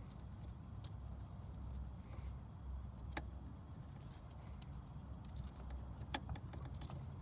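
Scattered small clicks and taps from hands handling wiring and tools, with two sharper clicks about three and six seconds in, over a steady low rumble.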